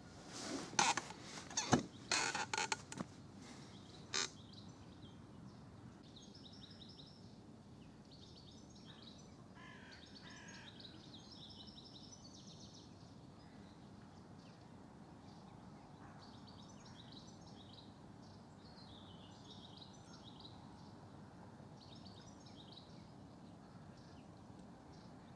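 Small birds chirping and singing, faint and scattered, over a quiet outdoor hush. A cluster of loud knocks and rustles comes in the first few seconds.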